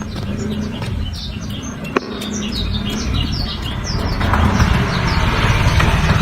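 Black-throated canary (blackthroat) singing a fast string of short, high, falling chirps over a steady low rumble. A broad hiss swells from about four seconds in.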